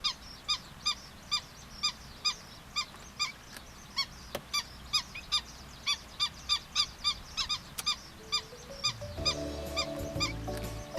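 Black-winged stilt calling over and over, short sharp calls about two a second. Background music fades in about eight seconds in and plays under the last calls.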